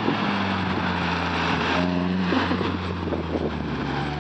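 Exhaust note of a 2008 Mitsubishi Lancer GTS's 2.0-litre 4B11 four-cylinder through a Tsudo S2 cat-back exhaust with an RRM test pipe and aftermarket intake, running at steady revs with a brief louder stretch about two seconds in.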